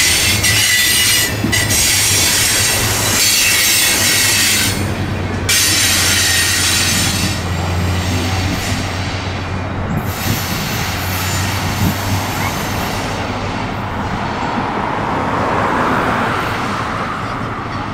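Freight train's open hopper cars rolling past, their steel wheels squealing high against the rails over a low rumble. The squeal thins out after about ten seconds as the last car pulls away.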